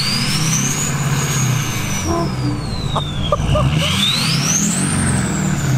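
Freshly overhauled LBZ Duramax 6.6-litre V8 turbo-diesel being revved in place, its Stealth 64 turbo giving a very whistly spool. The whistle peaks about a second in and falls away, then climbs to a higher peak near the end and falls again, with the engine's running note underneath.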